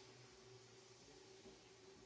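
Near silence: faint steady hum and hiss.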